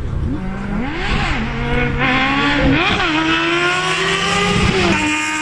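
An engine revving up and down several times, then holding a steady, slowly rising pitch that drops off near the end.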